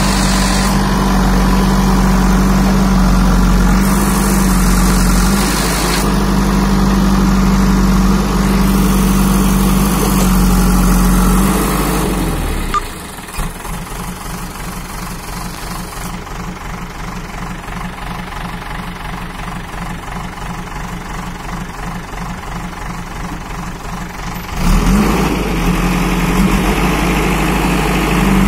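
JCB 3DX backhoe loader's diesel engine running at high revs while the backhoe digs. About twelve seconds in it drops to a quieter idle with a fast, even beat, then revs back up near the end.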